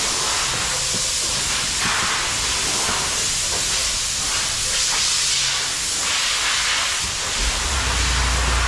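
Steady, fairly loud hiss, with a low hum joining about seven and a half seconds in.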